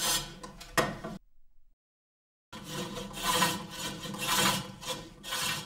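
Bowl gouge shaving a wooden bowl turning on a pedal-driven wood-turning lathe: rasping cutting strokes about twice a second. The sound cuts out for about a second near the start.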